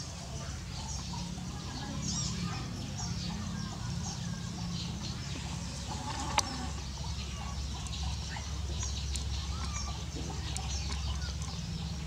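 Small birds chirping on and off in short, high calls over a steady low rumble, with one sharp click about six seconds in.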